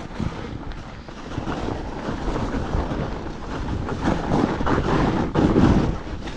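Fatbike riding over packed snow: wind rushing over the microphone with a low rumble from the fat tyres and the bike, knocking over bumps, loudest about five and a half seconds in.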